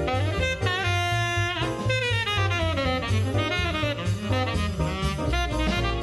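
Vintage small-group jazz recording: a saxophone plays a solo line of quick, changing notes over bass and drums.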